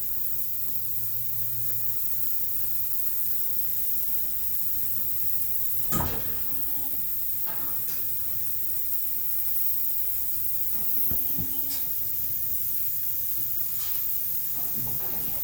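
Steady background hiss with a low hum in the first couple of seconds, one sharp knock about six seconds in, and a few faint, brief pitched sounds.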